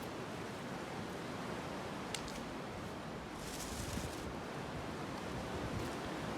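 Steady outdoor background hiss, with a faint click about two seconds in and a brief rustle near the middle.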